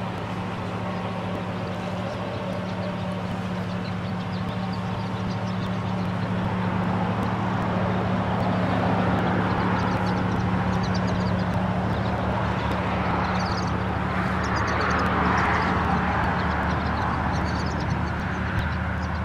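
Steady low vehicle hum, with a rushing noise that builds in the middle and eases toward the end.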